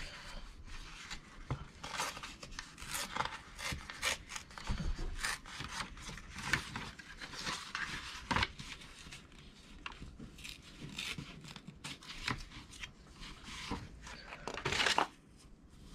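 A thin sheet of stamped paper rustling and crinkling as it is handled, with pieces torn off by hand; a longer, louder rip comes near the end.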